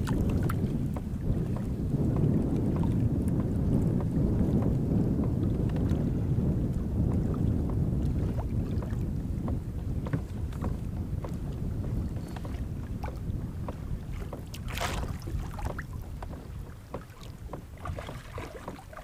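Wind buffeting the microphone over choppy water slapping against a kayak, loudest in the first half and easing off later. A short, sharp sound stands out about 15 seconds in.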